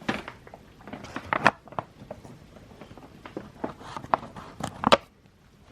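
Light handling noises: a scattering of small clicks and rustles as small items and packaging are moved about on a table.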